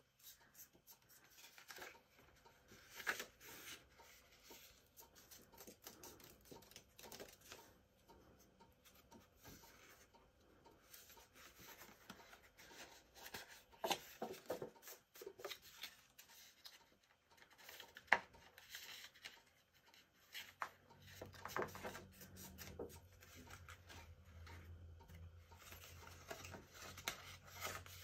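Cardstock being folded by hand along its score lines: faint, scattered rustles of paper with small crisp clicks as the folds are creased.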